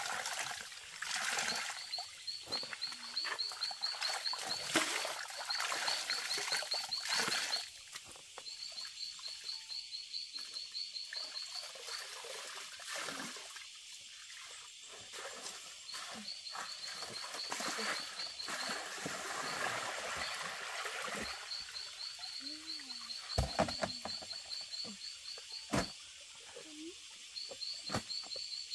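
A frog calling again and again in rapid trills of clicks, each about a second long with short gaps between. Underneath, water splashes and sloshes as wet clothes are wrung in a plastic basin, loudest in the first seven seconds, and a few sharp knocks come near the end.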